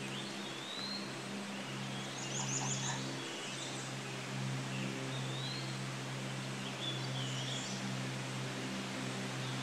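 Birds calling, short rising whistles every couple of seconds with a quick run of high chirps about two and a half seconds in, over a steady low hum.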